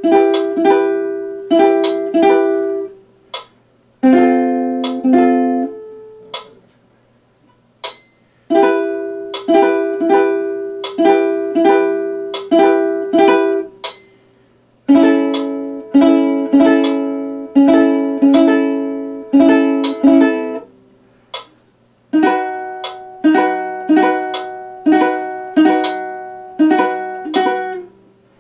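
Tenor ukulele strummed slowly, one chord at a time, each strum ringing and dying away, with short pauses between groups while he practises chord changes.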